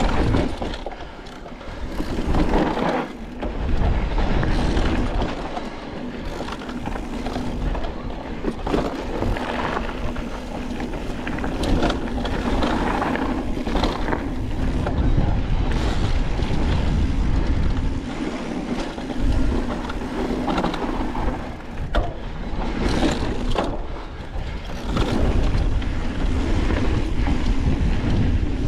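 Electric mountain bike descending a dirt singletrack: wind rumbles on the microphone over tyre noise on the dirt, and the bike rattles with occasional sharp knocks over rough ground.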